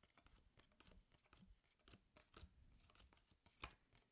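Faint clicks and rustles of Pokémon trading cards being handled and flipped one at a time, with a slightly sharper click about three and a half seconds in.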